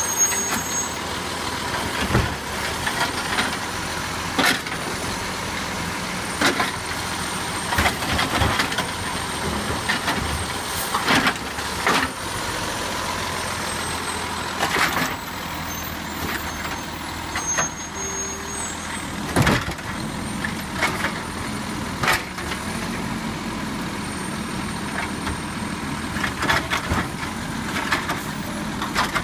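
Garbage truck with a Heil Durapack 7000 automated side-loader body running at the curb while its hydraulic arm grabs and tips carts. The steady run of the truck is broken by repeated sharp clanks and bangs, one every second or two.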